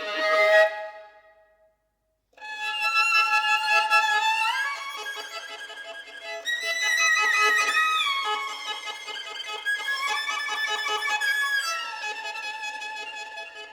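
Experimental contemporary violin music. A held note dies away about a second in, and after a short pause a new passage begins: sustained high notes, several sounding together, with slow slides between pitches.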